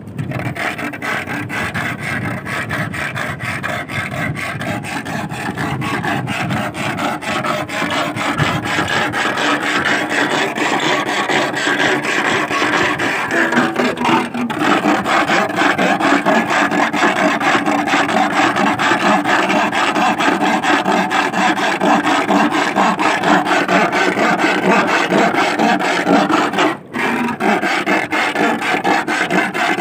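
Iron rod (bakal) being rasped in a fast, unbroken rhythm to send noise into the seabed and drive sea worms (sasing) out of the sand, with a brief break about 27 seconds in.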